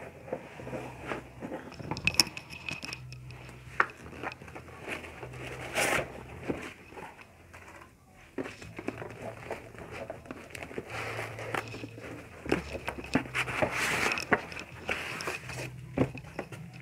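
Irregular rustling, crinkling and crackling with scattered sharp clicks as styrofoam packing protectors and packaging are pulled out of a cardboard laptop box.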